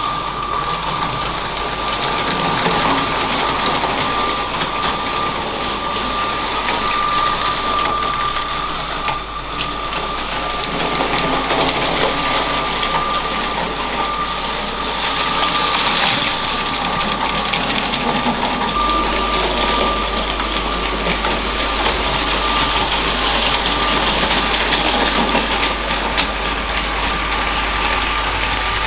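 LEGO train running on plastic track: its small electric motor gives a steady high whine while the wheels tick lightly over the track.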